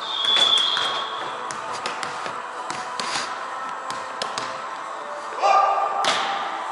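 Volleyball hits and bounces on a wooden gym floor: scattered sharp thuds and slaps that echo in the large hall. There is a thin high squeak in the first second, and a louder, higher-pitched squeak or shout about five and a half seconds in.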